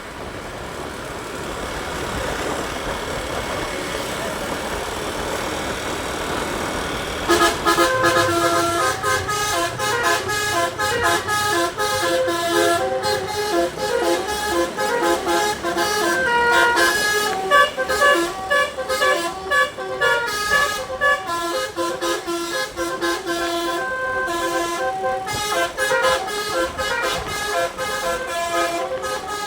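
Bus's DAV 'telolet' musical air horn playing a fast tune of quickly changing notes, starting about seven seconds in after steady road and engine noise.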